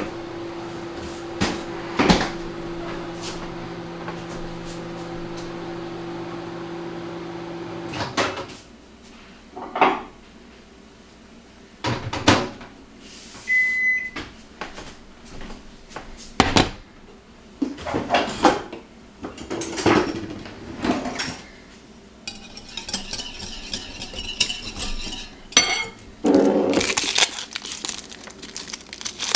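Kitchen appliance hum, likely a microwave oven running, that cuts off about eight seconds in, followed by knocks and clatter of dishes and utensils being handled, with a short beep in the middle.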